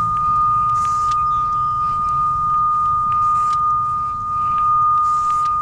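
Cable locator receiver (Radiodetection RD8200) sounding its steady high-pitched response tone while tracing a clamped CATV coax cable; the unbroken tone shows a strong signal on the cable.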